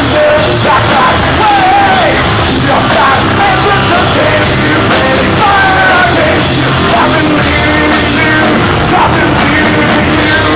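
Rock band playing loud live: electric guitars, bass and drums, with a singer's voice and gliding pitched lines over them.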